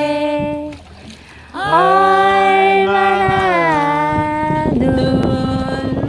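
A couple singing a Korean love song unaccompanied, in long drawn-out notes. One note ends a little under a second in, then after a short pause comes a long held note that slides up at its start and lasts about two seconds. Near the end a lower note is held over a rough, scratchy noise.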